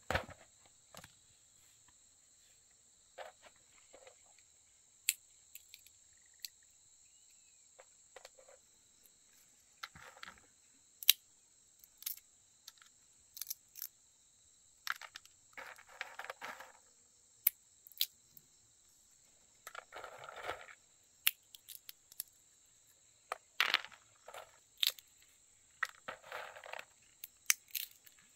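Steady high-pitched drone of insects, with scattered sharp clicks and several rough scraping noises about a second long.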